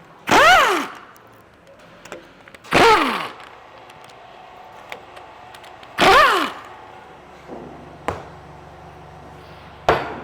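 Air impact wrench fired in three short bursts a few seconds apart, its pitch falling quickly each time it spins down, as it backs out the drive-end Allen bolts of a progressive cavity pump. Later, a couple of sharp knocks, which are the mallet taps that loosen the drive end from the gearball housing.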